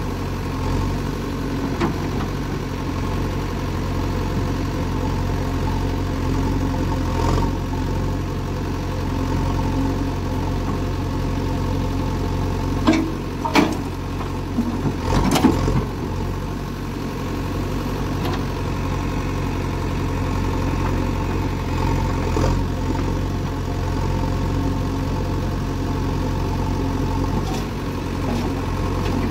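JCB 3DX backhoe loader's diesel engine running steadily as the backhoe digs and swings, with a few sharp knocks and clanks about halfway through as a bucketful of soil is dumped into a tractor trolley.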